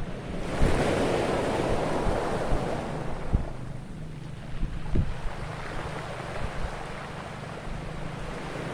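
Ocean surf: a wave washes in and swells for the first few seconds, then eases, with wind buffeting the microphone in low rumbles and a few thumps.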